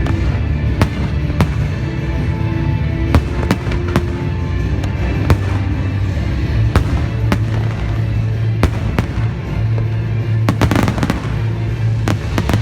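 Fireworks going off in sharp, separate bangs at irregular intervals, with a dense burst of crackling about ten and a half seconds in, over steady background music.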